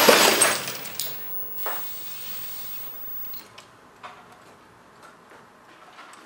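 A small CRT television's picture tube bursting, struck by an air-cannon slug: the crash of breaking glass and casing dies away over about a second and a half. A couple more pieces drop about one and almost two seconds in, then scattered small ticks of settling fragments.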